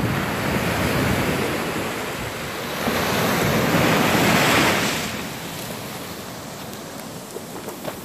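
Ocean surf breaking and washing up a sandy beach. One wave surges loudest a few seconds in, then drains away more quietly. Wind buffets the microphone.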